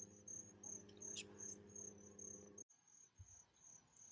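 Faint chirping of crickets, a high note pulsing about three times a second, over a low steady hum that cuts off abruptly about two-thirds of the way through.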